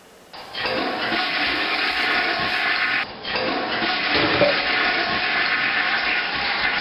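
Water rushing steadily, with a short break about three seconds in.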